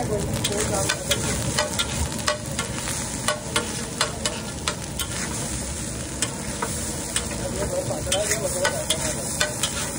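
Metal spatula clinking and scraping on a large flat griddle as a heap of egg fried rice is stirred and turned, in irregular strokes about two or three a second, over a steady frying sizzle.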